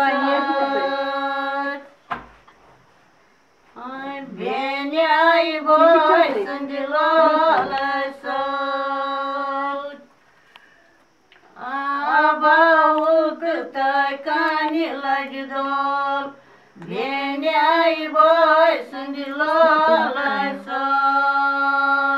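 Two women singing a Kashmiri folk song together, unaccompanied, in long held notes with ornamented pitch turns. The song comes in phrases broken by short pauses, about three times.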